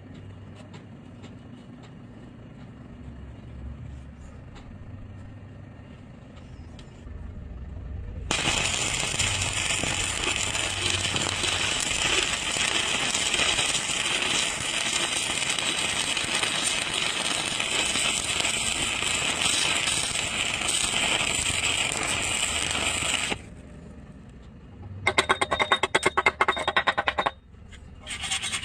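Electric arc welding on an iron pipe: a steady crackling hiss that starts about eight seconds in, holds for about fifteen seconds and then cuts off as the arc is broken. Before it there are only faint ticks over a low hum, and near the end there is a burst of rapid, scraping ticks.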